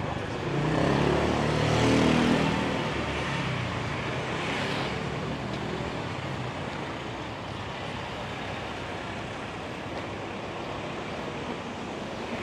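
A motor vehicle passes close by: its engine grows louder, is loudest about two seconds in, then fades away. Steady traffic noise runs underneath.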